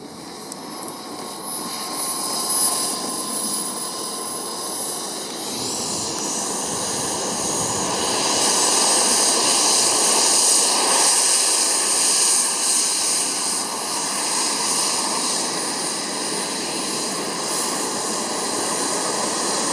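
Radio-controlled model jet in flight, its engine a high whine over a rush of air, growing louder over the first few seconds. A high tone climbs sharply about six seconds in, and the whine sinks slowly in pitch toward the end as the jet passes.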